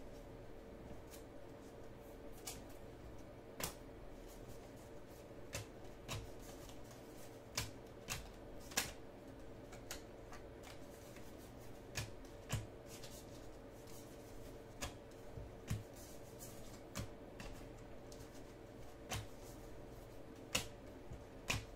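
A stack of baseball trading cards flipped through by hand, one card slid off the next. The card edges give irregular sharp clicks and snaps, roughly one or two a second.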